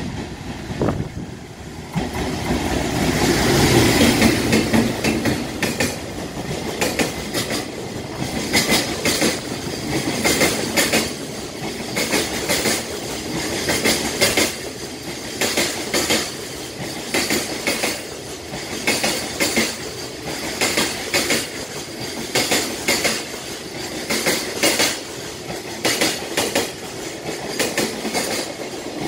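An EF510 electric freight locomotive passes at speed, loudest a few seconds in. A long string of container wagons follows, its wheels clicking over the rail joints in a steady clickety-clack.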